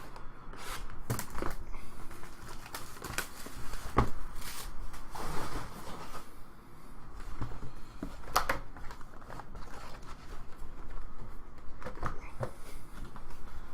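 A sealed trading-card box and its packs being handled and opened: scattered clicks and knocks of cardboard, with brief rustling of pack wrappers.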